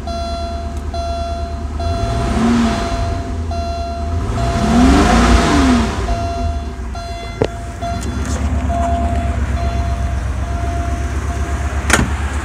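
1985 Porsche 928's V8 running, heard from inside the cabin, its revs rising and falling twice early on over a steady idle. A dashboard warning beeper beeps over and over, and there is a sharp knock near the end.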